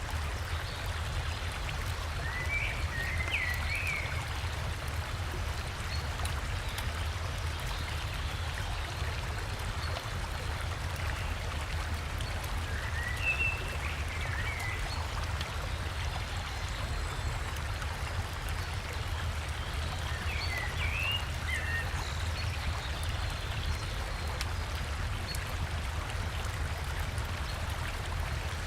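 Steady rush of flowing river water with a low rumble underneath, and a songbird singing four short twittering phrases spaced several seconds apart.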